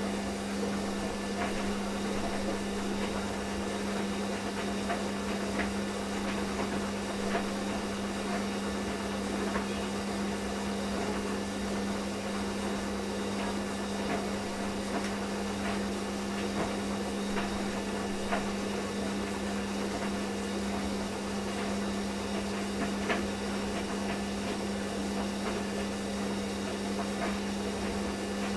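Steady electrical hum with a constant hiss underneath and a few faint scattered clicks.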